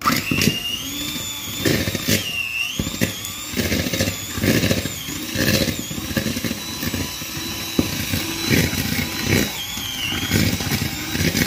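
Electric hand mixer running as its beaters churn blocks of cream cheese with eggs and sugar for a cheesecake batter; it starts at once, and the motor's whine wavers in pitch as the beaters catch in the thick mixture, with irregular knocks of the beaters in the plastic bowl.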